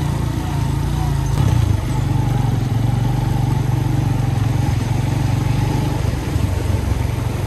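Motorcycle engine running steadily under way, heard from the rider's seat, with a brief change in the engine note about one and a half seconds in.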